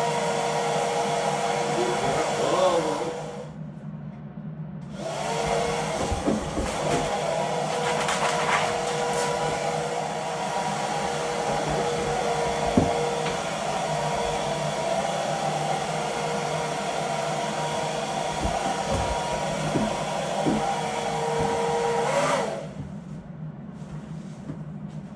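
Hand-held blow dryer running with a steady whirring hiss. It is switched off about three and a half seconds in, comes back on a second or so later, and is switched off again near the end.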